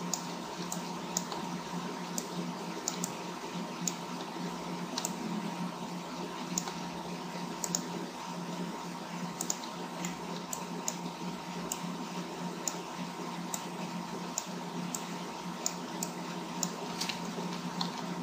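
Scattered sharp clicks of a computer mouse and keyboard, roughly one a second at uneven intervals, over a steady low hum and hiss.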